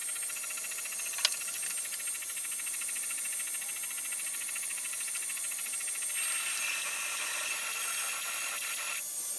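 AlgoLaser DIY Kit MK2 diode laser engraver running a fill engraving, its head sweeping rapidly back and forth: a steady high hiss and whine from the machine, with one sharp click about a second in and a further tone joining about six seconds in.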